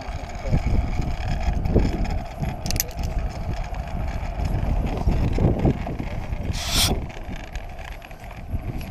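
Zipline trolley running fast down the steel cable, with a steady hum under heavy wind buffeting on the microphone. A brief hiss comes about seven seconds in.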